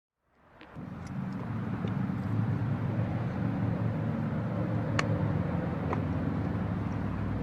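Suzuki SV650S V-twin motorcycle engine running steadily, fading in over the first second.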